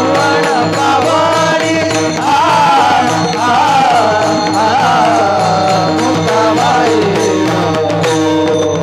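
Devotional singing in Indian classical style: a solo voice slides through ornamented, melismatic runs over a steady held drone and a regular hand-drum beat. The voice trails off about three-quarters of a second before the end, leaving the drone and drum.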